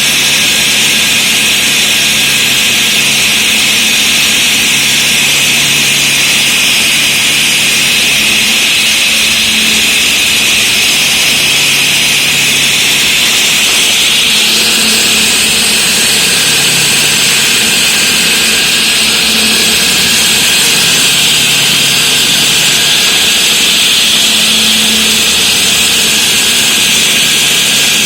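Floor saw cutting a reinforced concrete slab with a diamond blade: a loud, steady, high-pitched grinding that turns a little brighter about halfway through.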